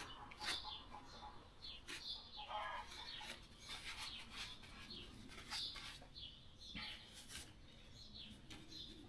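Small birds chirping repeatedly in short high calls, with a few light clicks and rustles from a rag and metal parts being handled.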